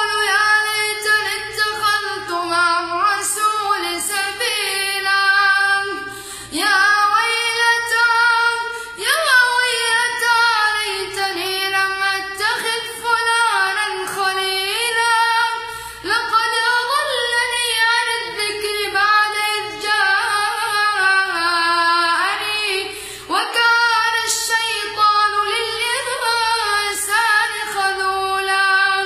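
A boy reciting the Quran in a high, melodic chanting voice: long drawn-out phrases with ornamented glides in pitch, broken a few times by short pauses for breath.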